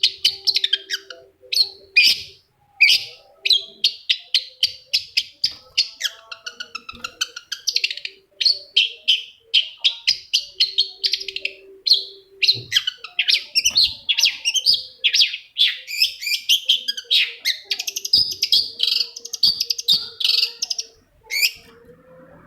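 Long-tailed shrike singing a fast, unbroken chatter of short, sharp, high notes, several a second, with scratchy runs mixed in.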